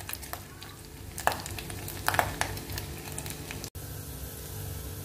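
Diced pork cheek and ear frying in hot oil in a small saucepan, sizzling steadily with a few sharp pops and spatters in the first half as the meat browns.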